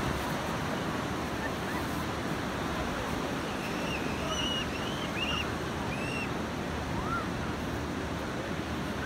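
Steady wash of swimming-pool water lapping and splashing close to the microphone as a child paddles in the pool, with a few short high chirps in the middle.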